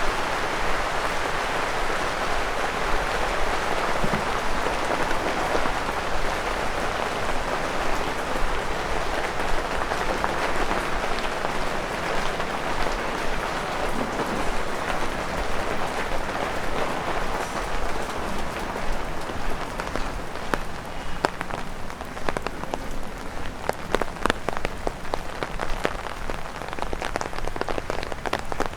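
Rain falling and pattering on an umbrella overhead: a dense, even hiss of drops that thins about twenty seconds in, leaving separate drops tapping sharply on the umbrella canopy.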